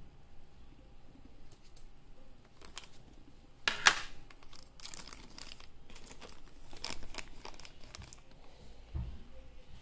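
Crinkling and rustling of something being handled, with sharp crackles and clicks. The loudest crackle comes about four seconds in, and a dull thump comes near the end.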